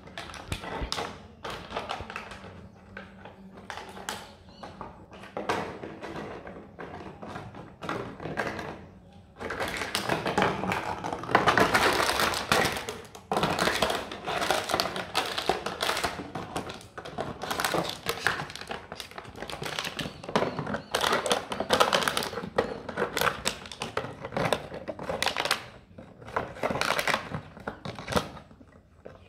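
German shepherd puppy chewing and pawing a crushed clear plastic bottle on concrete: irregular plastic crackling and crunching, with taps and thunks as the bottle knocks on the ground. The crackling is loudest and densest from about ten to thirteen seconds in.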